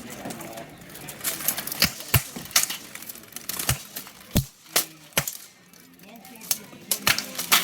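Blunted steel weapons striking steel armour in full-contact medieval combat: about eight sharp clanks and thuds at irregular intervals, with background voices.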